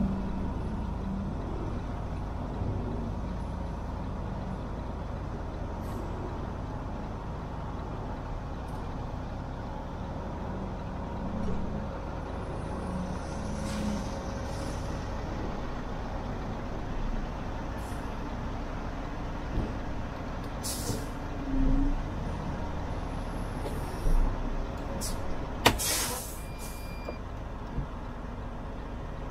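Semi truck's diesel engine running at low speed, a steady low rumble, with short air hisses and one louder burst of air about three-quarters of the way through: the air brakes being set as the truck is parked.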